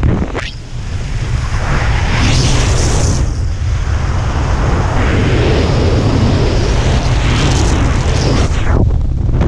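Wind buffeting a helmet camera's microphone under a flying parachute canopy: a loud, gusty rumble that dips briefly about half a second in and again at the very end.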